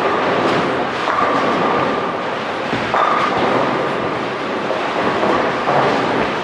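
Bowling centre din: balls rolling down the lanes and pins crashing on many lanes at once, a steady rumbling clatter with scattered knocks.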